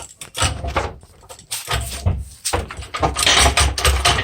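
Metal knocking and clatter from tools working a stuck rear subframe bolt on a car's underside. The knocks are scattered at first, then come thick and fast in the second half.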